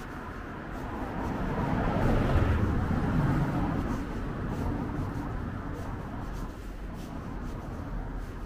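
A car passing along the street. Its engine and tyre noise swells to a peak a couple of seconds in, then fades away.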